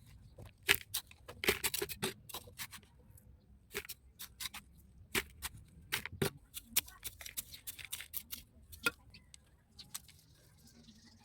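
Packaging being handled during a plant unboxing, a quick irregular run of sharp crackles and clicks, densest in the first few seconds and thinning toward the end.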